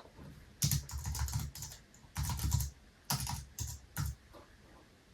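Typing on a computer keyboard: rapid key clicks in three short bursts with brief pauses between them, stopping about four seconds in.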